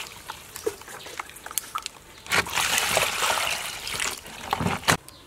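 Water poured from a jug into a plastic bowl of dried ingredients, splashing for about a second and a half starting a little past two seconds in. Small handling clicks and knocks come before and after the pour.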